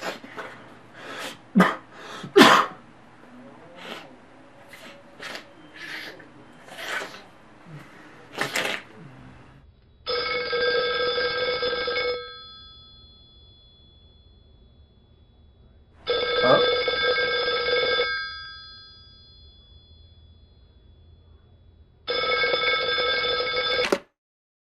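A person sniffing and sneezing in a string of short, sharp bursts, then a telephone ringing three times, each ring about two seconds long with a pause of about four seconds between rings.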